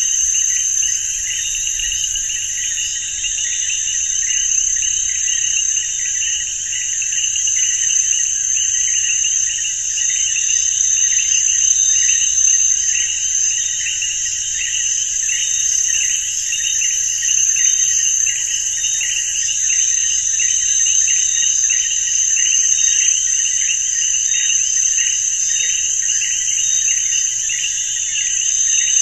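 Field insects chirping steadily in chorus: a continuous high-pitched buzz with a regular pulsing chirp beneath it, several pulses a second, unchanging throughout.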